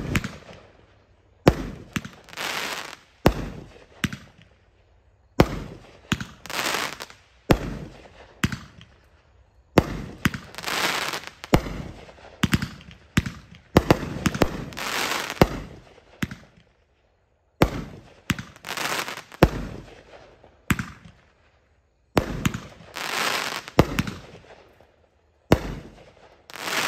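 Bright Star 'Crop Circles' 500 gram fireworks cake firing its 16 shots in an uneven string of sharp reports. Several breaks are followed by about a second of dense crackle as the strobe stars burn.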